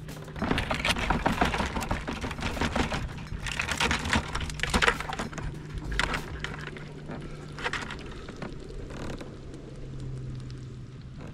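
Square-mesh wire crab trap rattling and clattering as it is shaken and handled to tip blue crabs out into a bucket. Dense clicks and rattles for the first few seconds, thinning to scattered clicks later.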